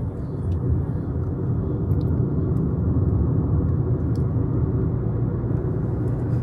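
Car on the road: a steady rumble of engine and tyre noise.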